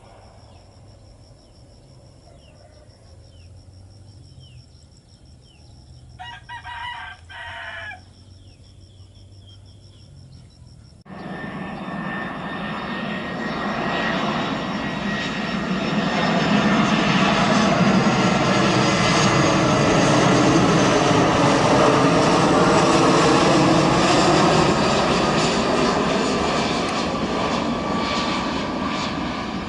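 A rooster crows about six seconds in, over faint chirps. About eleven seconds in the sound cuts to an Airbus A320 on final approach. The noise of its jet engines swells to a steady loud rush with slowly sweeping tones as it flies past, easing a little near the end.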